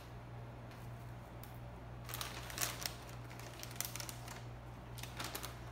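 A plastic bag crinkling and rustling in short crackly spells from about two seconds in as crackers are handled, over a steady low hum.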